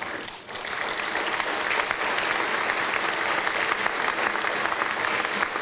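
Audience applauding, the even clatter of many hands clapping; it dips briefly at the start and fills back in within the first second.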